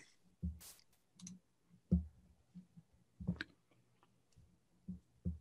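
Faint, scattered clicks and soft low knocks, about six in all, spread across a few seconds over a faint steady low hum.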